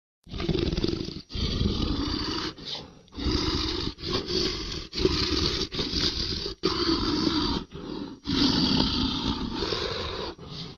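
Dragon roar sound effect: a string of about ten rough, noisy growls broken by short gaps, with a longer growl near the end.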